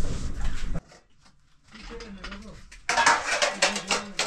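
Metal cooking utensils clattering and scraping against pots and dishes. The sound cuts off abruptly about a second in, then comes back as a quick run of clinks and scrapes from about three seconds in.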